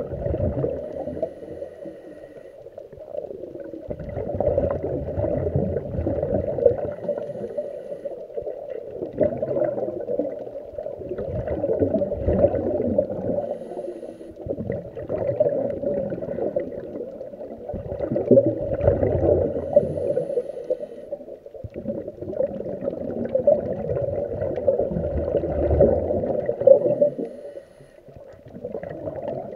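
Scuba regulator breathing with exhaled bubbles, muffled through an action camera's waterproof housing underwater: a gurgling rush of bubbles that swells and fades four or five times, every five to seven seconds.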